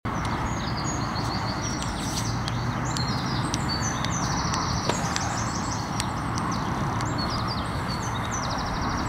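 Small birds singing: quick runs of high chirping notes over a steady rushing noise, with one sharp click about five seconds in.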